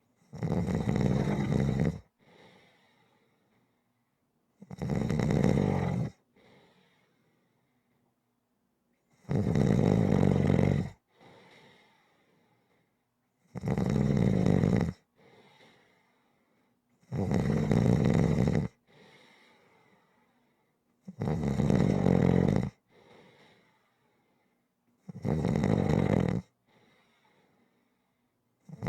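Steady, rhythmic snoring: seven loud snores, each about a second and a half long and coming about every four seconds, each followed by a fainter, shorter breath.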